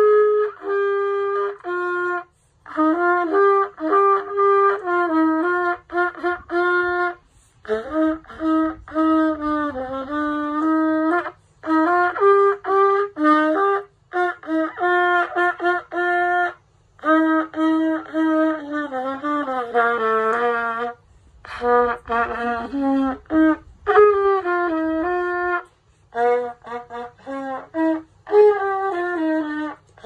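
A trumpet played solo by a child, a simple melody of held and moving notes in short phrases, with brief breaks for breath between them.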